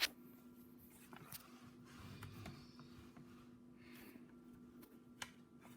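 Near silence: quiet room tone with a low steady hum and a few faint clicks.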